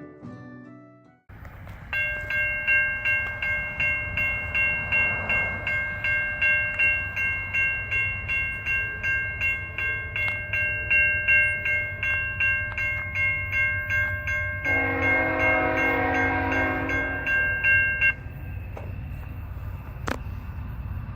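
A bell rings steadily in rapid strokes, about two a second, over the low rumble of a train, and stops abruptly near the end. Partway through, the train's chord horn sounds one blast of two to three seconds, and the rumble carries on after the bell stops.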